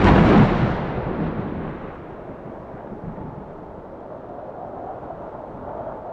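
A thunder clap swells and peaks right at the start, then rolls away over about two seconds into a steady stormy rumble and hiss.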